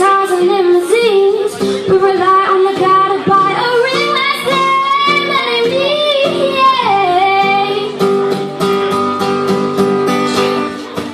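A young woman singing with a strummed acoustic guitar in a live performance. She holds long notes with a slight waver, and from about eight seconds in the strumming becomes more prominent under a held note.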